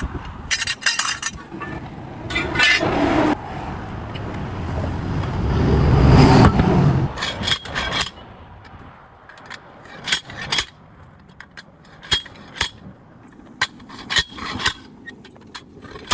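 Metal tools clinking and scraping on a truck wheel during a roadside tire change, in sharp irregular knocks. About four seconds in, a passing vehicle's rumble builds, peaks and fades by the middle.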